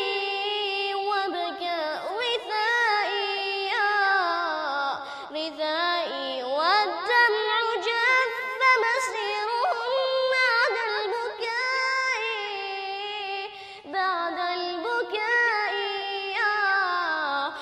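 A high solo voice singing an Arabic nasheed in long, ornamented melismatic lines, with short breath pauses between phrases.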